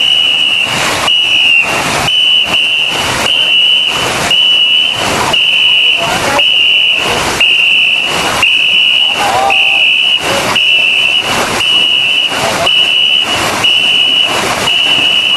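A high, shrill pacing whistle blown in short repeated blasts, about one a second, setting the stroke rate for a ngo longboat crew, with the paddles splashing into the water in time with each blast.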